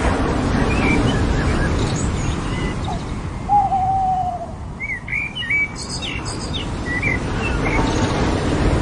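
Ocean surf washing steadily on a beach, with birds calling over it: one drawn-out, slightly falling call about three and a half seconds in, then a quick cluster of high chirps a couple of seconds later.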